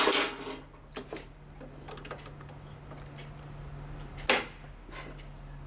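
Small plastic clicks, then one sharp snap about four seconds in as a 30-amp double-pole circuit breaker is pressed onto the panel's bus bar. A steady low hum runs underneath.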